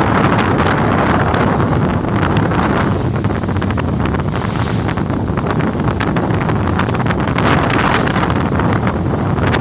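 Wind buffeting the microphone over water rushing and splashing along the hull of a Tur 84 28-foot sailboat under sail.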